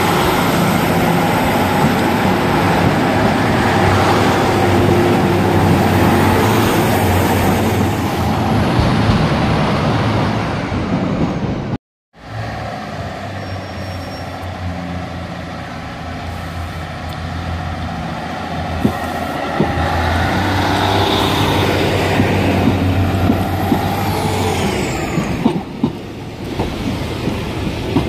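Northern Class 156 and Class 150/2 diesel multiple units pulling away under power, engines running with a steady drone. The sound cuts off about twelve seconds in. A Class 150/2 and Class 142 diesel pair then pulls out towards the listener, its engines growing louder as it draws near and passes.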